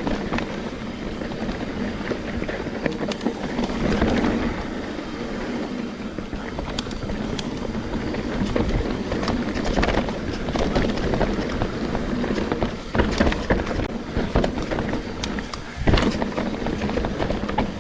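Trek Slash 9.8 full-suspension mountain bike riding down a dirt singletrack: steady tyre noise over the trail with repeated sharp knocks and clatters from roots and rocks, the loudest a little before the end.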